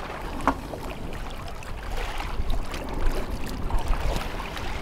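Water sloshing and splashing around a snorkeler treading water beside a boat, over a steady low rumble.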